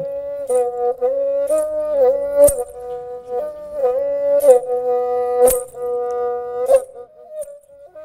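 Background music: a flute playing a slow melody of held notes, with a few sharp percussion strikes. It fades out near the end.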